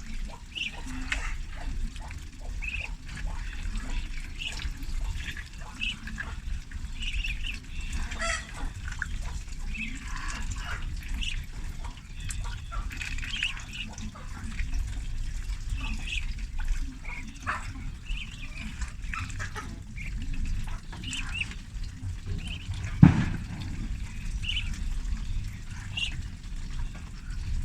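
Ducklings peeping, many short high calls overlapping without pause. About three-quarters of the way through there is one sharp, loud knock.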